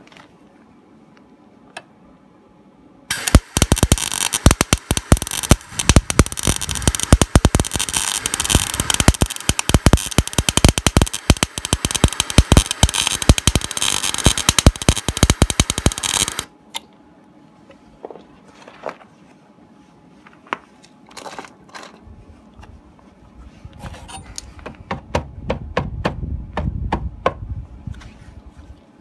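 MIG welder arc crackling as a steel repair patch is welded in: a dense, rapid, sizzling crackle that starts a few seconds in, runs for about thirteen seconds and stops suddenly. Afterwards come scattered ticks and pops.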